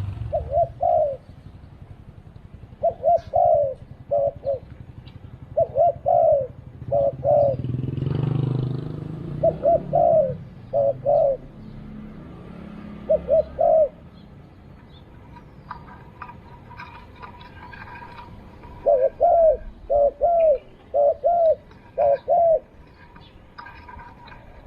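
Spotted dove cooing: short phrases of low, bending coo notes repeated over and over, with a long pause midway before a last run of notes.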